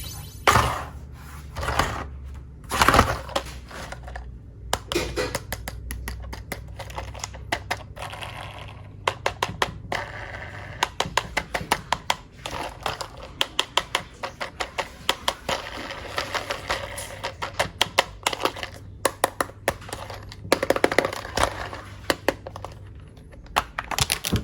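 Many sharp clicks and light knocks, scattered at first and coming fast and irregularly from about nine seconds in, over a steady low hum.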